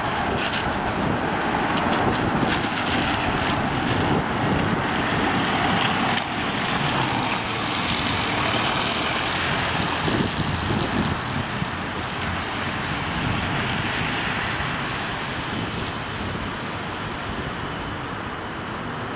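Road noise of a Mercedes Sprinter ambulance driving past and pulling away, with wind buffeting the microphone; no siren is sounding.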